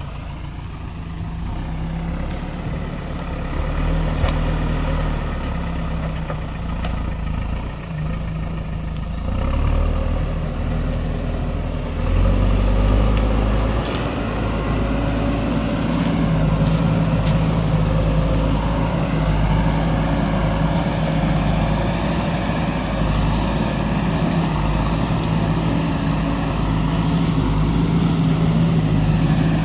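Backhoe loader's diesel engine running steadily, stepping up louder and higher about twelve seconds in as it takes on load, with a few light knocks soon after.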